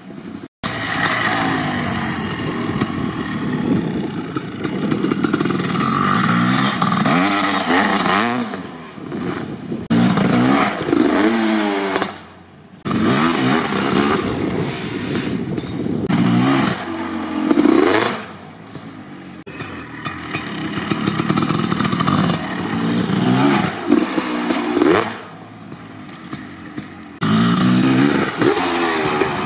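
1990 Kawasaki KX500's single-cylinder two-stroke engine, running through an FMF Gnarly pipe and Pro Circuit R-304 silencer, revving up hard and dropping back again and again as the bike is ridden over dirt jumps and wheelied. The sound breaks off suddenly several times between takes.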